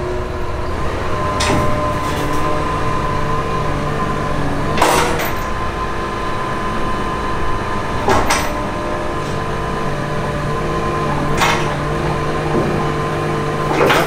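Diesel heavy-equipment engine running steadily under load with a steady whine, as the steel ramp carrying a CAT 272D skid steer is raised to tip it; a low hum comes and goes, and four sharp knocks fall about three seconds apart.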